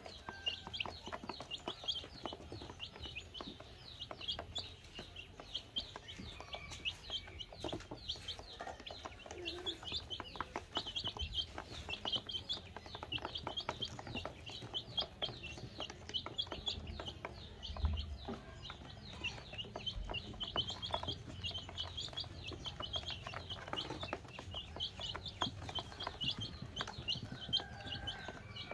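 A brood of baby chicks peeping without pause, many short high peeps overlapping, with sharp taps of beaks pecking feed off a plastic basin.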